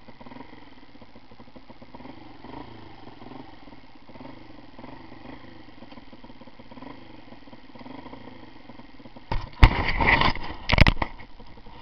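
Motorcycle engine idling low and unevenly, then about nine seconds in a few loud blasts with two sharp clicks.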